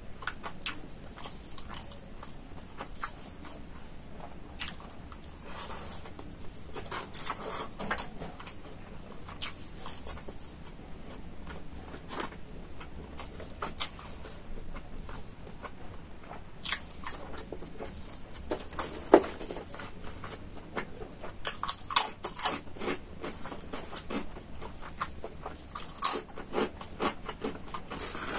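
Close-miked chewing and crunching of rice and crispy fried food eaten by hand, with many short sharp crunches that come thicker and louder in the second half.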